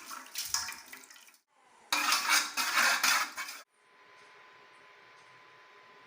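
Metal utensils clattering against a pot with water sloshing, in two bursts, the second louder and stopping abruptly a little past halfway. This is typical of dye being mixed in a pot.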